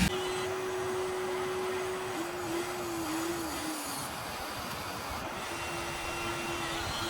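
Huina 1593 RC excavator's small electric motors running with a thin whine. The whine holds steady for about two seconds, then wavers and sags in pitch as the motors take load. It stops briefly around the middle and comes back steady near the end.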